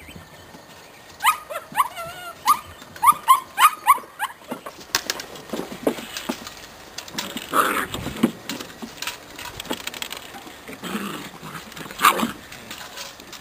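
Belgian Malinois puppies whimpering and yelping in a quick run of about ten short, high calls that bend in pitch. Scuffling follows, with two louder, rougher calls later on.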